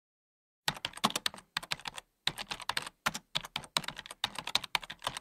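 Computer keyboard typing sound effect: fast key clicks in about six short runs separated by brief pauses, starting under a second in.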